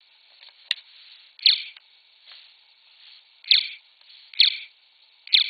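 A space-gun sound keychain playing its electronic ray-gun zap from its small built-in speaker, four times, each zap a short sound that drops quickly in pitch. A sharp click comes before the first zap, and a fainter zap comes between the first and second.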